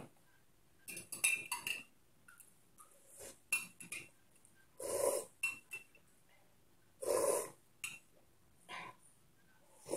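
A metal spoon clinks against a ceramic mug several times, each clink ringing briefly. Later come two loud slurping sips from the mug, about five and seven seconds in, with a few light taps of the spoon in between.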